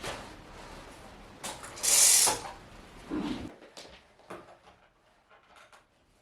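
Household handling sounds: a loud rustling swish about two seconds in, a dull knock just after, then scattered small clicks and knocks growing quieter.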